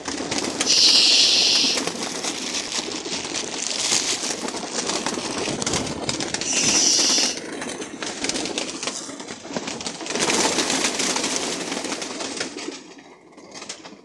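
A large flock of domestic pigeons flapping and fluttering their wings in a dense crowd, with cooing among the clatter. The flapping swells louder about a second in and again around seven seconds, and dies down near the end as the birds settle.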